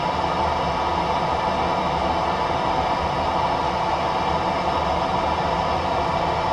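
Steady hiss with a low hum inside a car cabin, from the car's idling engine and ventilation fan.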